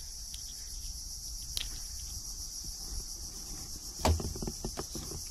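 Steady, high-pitched chorus of insects such as crickets, with a short muffled voice about four seconds in.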